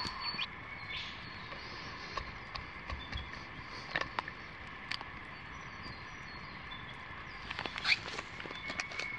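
Outdoor bush ambience: birds calling over a steady high background drone, broken by a few brief clicks and rustles, with a small cluster of them near the end.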